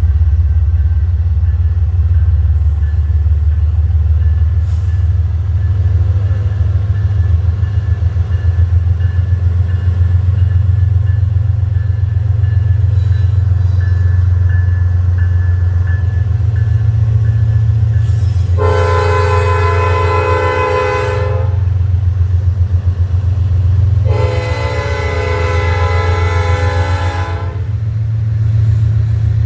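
Freight locomotive air horn sounding two long blasts of about three seconds each, with a third starting near the end: the long blasts of a grade-crossing horn signal. Underneath runs the steady low rumble of the locomotive's diesel engine.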